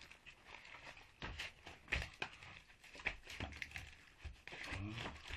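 Copper winding wire being pulled by hand out of the slots of a washing-machine motor's stator: irregular scraping and crackling of wire and paper slot insulation, with scattered clicks and a sharp knock about two seconds in.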